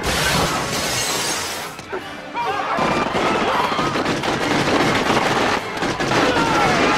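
A large glass screen shattering, the crash and falling shards lasting about two seconds, then pistol shots in a gunfight under music.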